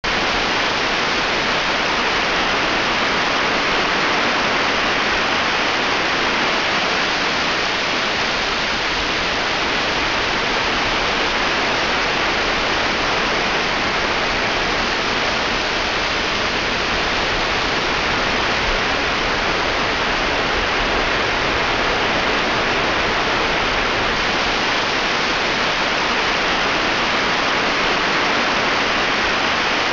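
A large waterfall rushing: a loud, steady, even noise that does not change.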